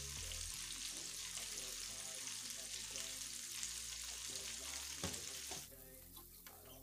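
Breaded chicken wings deep-frying in hot oil in a pan: a steady sizzle and crackle of bubbling oil, which drops sharply in level near the end and carries on more faintly.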